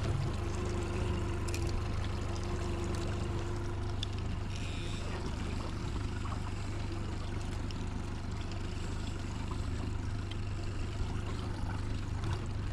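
Fishing boat's motor running steadily, a low even drone, with a few faint knocks.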